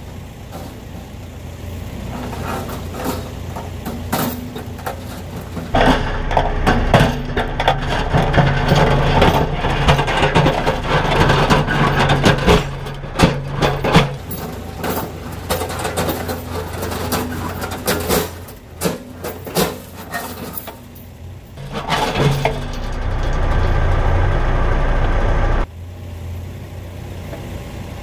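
Diesel engine running steadily beneath metal clanks, creaks and scrapes as a bent steel-mesh food plot drag is pulled back toward straight between a mini excavator's bucket and a tractor's loader bucket on gravel. The clatter comes in two spells, and the engine sound drops off suddenly near the end.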